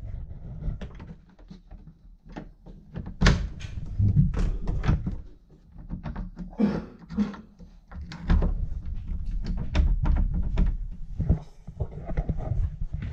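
An old door's key and knob being handled in the lock: a run of clicks, rattles and thuds against the wooden door.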